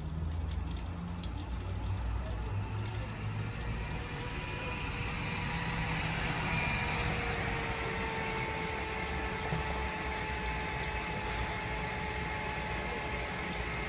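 Steady low rumble of a motor vehicle, with faint held humming tones that sink slightly in pitch around the middle.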